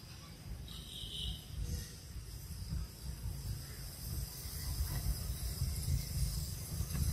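Insects buzzing steadily in several high-pitched bands over a low rumble, with a short higher chirp about a second in.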